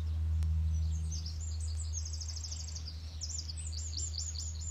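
A songbird singing high: a rapid trill of chirps about two seconds in, then a run of quick sweeping notes, over a steady low rumble.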